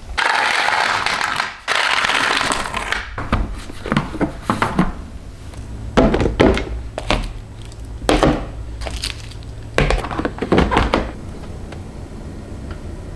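Household objects being handled and set down: about three seconds of rushing or rustling noise, then a string of light knocks and clunks.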